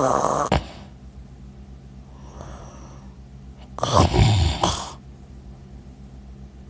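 A man snoring loudly in his sleep: one rasping snore fades out just after the start, a soft breath follows, and another loud snore comes about four seconds in.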